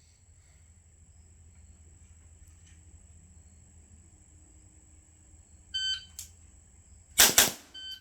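Shot timer gives its start beep, then about a second and a half later two gunshots in quick succession, the loudest sounds here. The timer's second beep follows, marking the end of a 2-second par time.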